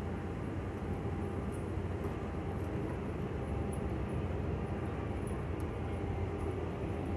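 Steady low rumble of street traffic and running engines, with a faint hum and no single event standing out.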